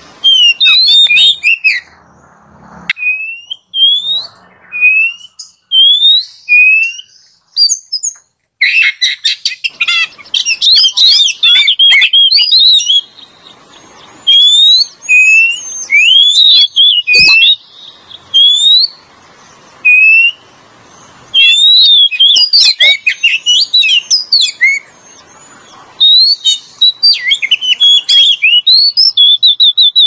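Oriental magpie-robin (kacer) song used as a lure call: loud, clear rising whistles repeated in short phrases, broken by bursts of rapid warbling and chattering notes, with brief pauses between phrases.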